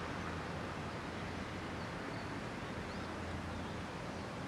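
Distant, steady rumble of a yellow two-car electric commuter train running away from the listener, over a constant low hum and outdoor noise, with a few faint bird chirps about two to three seconds in.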